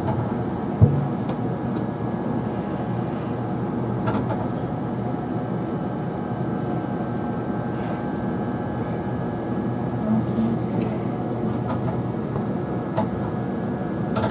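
Steady hum inside a Nagasaki Electric Tramway 3000-class tram standing still, its onboard equipment running, with one sharp click about a second in.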